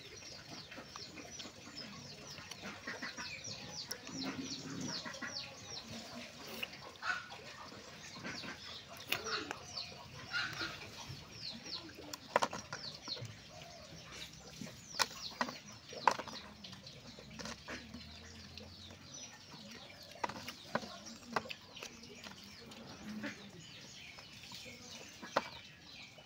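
Birds calling outdoors: long runs of quick, short falling chirps, thickest in the first half, with some lower calls. Scattered sharp taps and clicks stand out over them, the loudest in the second half, from the grapes and plastic cups being handled.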